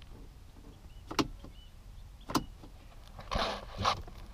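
Two sharp clicks about a second apart as a BMW key fob is pushed into the dash ignition slot, followed near the end by a short rustling.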